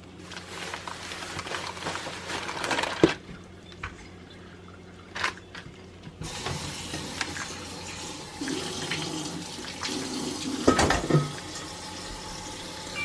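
Kitchen tap running into a sink. It stops about three seconds in and comes back on about six seconds in, with a few sharp clanks along the way.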